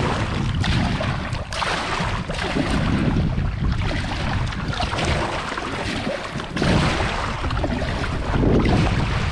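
Double-bladed paddle strokes splashing in choppy sea as a fishing kayak is paddled, with wind noise on the microphone.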